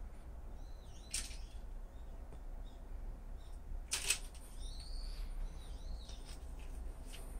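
A dry leaf crackling sharply about four seconds in as a cat swats and bites it, with a smaller rustle about a second in. Small birds chirp in short arched calls in the background.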